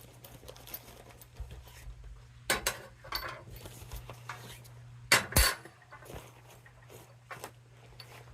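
Metal parts of a collapsible camping table clinking and clattering as they are handled: a few sharp knocks, the loudest about five seconds in.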